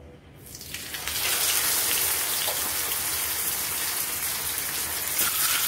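Whole masala-marinated pomfret sizzling as it goes into hot oil in a frying pan. The sizzle starts about half a second in and builds within a second to a steady hiss.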